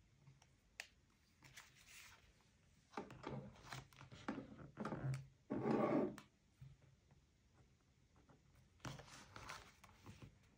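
Paper and stationery being handled and rubbed close to the microphone, heard as faint rustling. It comes in two spells, a longer, louder one from about three to six seconds in and a shorter one near the end.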